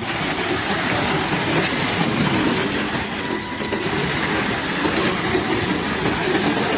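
Steady, loud mechanical rumble and clatter, starting and stopping abruptly.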